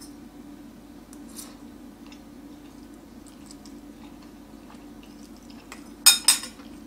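Person eating noodles with a fork, quiet chewing, then a fork clinking sharply against a bowl a few times about six seconds in. A steady low hum runs underneath.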